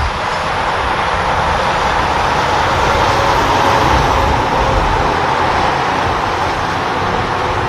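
Semi-truck pulling a moving-van trailer and a towed flatbed, passing by at road speed. Its tyre and engine noise builds to a peak about halfway through, then eases off.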